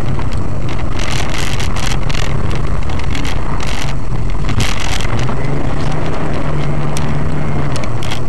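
A car driving on a snow-covered road, picked up by a dashcam microphone inside the car: a steady low engine hum under loud road noise, with frequent short knocks and rattles.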